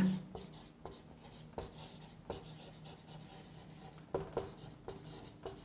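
Marker pen writing on a whiteboard: a string of short, faint strokes and taps as words are written out, irregularly spaced.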